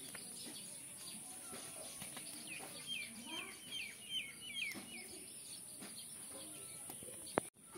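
A small bird calling a quick run of about eight short chirps in the middle, over a quiet background hiss. A single sharp click near the end.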